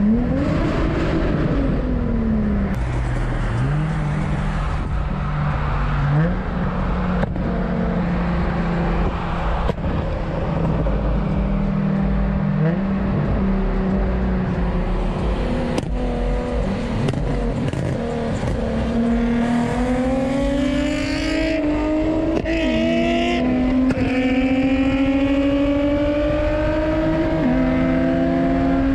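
Car engine running and revving: its pitch sweeps up and back down near the start, holds steady notes that step from one pitch to another through the middle, then climbs slowly over the last several seconds. A few sharp clicks are scattered through.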